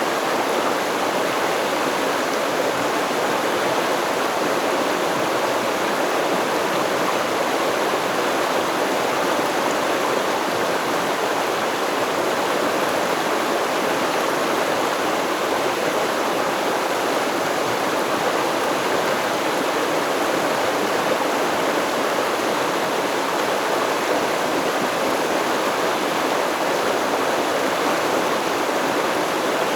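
Stream water flowing and babbling over rocks, a steady even rush without birdsong.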